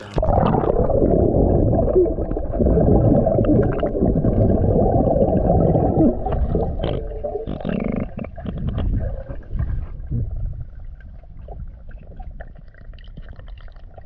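Water sloshing and gurgling, heard through a submerged camera as a muffled, dull rumble. It is loud for the first several seconds, then settles quieter, with a few faint clicks.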